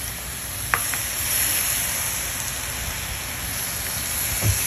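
Blended guajillo chile and tomato sauce poured into a hot pan of shredded chicken and oil, sizzling steadily as it hits the pan, with one small click about three-quarters of a second in.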